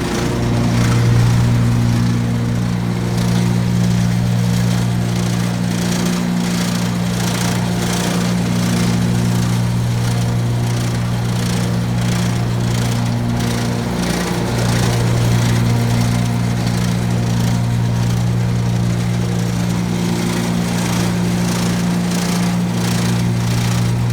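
Gravely ZT HD 52-inch zero-turn mower running steadily with the blades engaged, with a fast rattle from the deck over the engine hum. The owner traces the rattle to a left-side deck belt that is too slack: pulling on that side's tension spring makes it much quieter.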